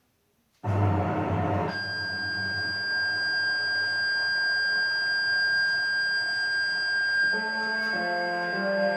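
An electronic alert tone from a siren test starts abruptly about half a second in. A steady high beep is held over lower sustained notes. Near the end the lower notes begin to change in steps, like a melody.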